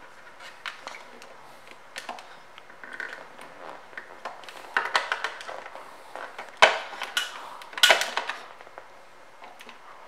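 Irregular clicks, knocks and short rattles of close handling, the sharpest click about two-thirds of the way through, with no engine running.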